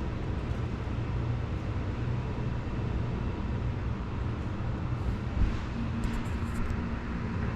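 Furnace/AC unit's blower motor running with a steady hum and rush of air, now starting properly on a freshly replaced capacitor. A light knock about five seconds in, then a few faint ticks.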